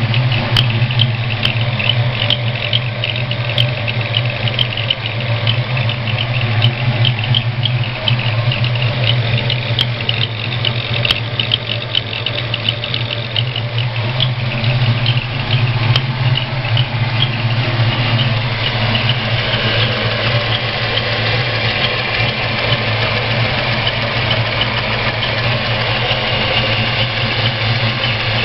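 Ford 302 V8 idling, with a rapid, repeating high-pitched squeak or whistle from the number one cylinder's exhaust valvetrain. The owner suspects a bad roller.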